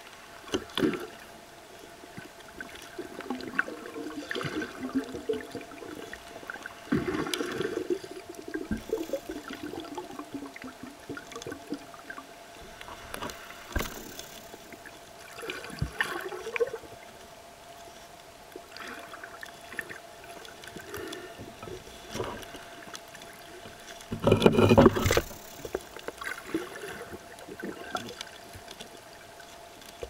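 Water surging and gurgling around an underwater camera in shallow, wind-chopped water: irregular sloshing rushes with scattered clicks, the loudest rush about five seconds before the end. A faint steady hum runs underneath.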